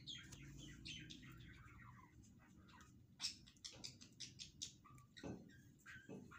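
Ghee melting in a hot nonstick frying pan: faint crackling and spitting over a low steady hum, with a few sharper clicks in the second half.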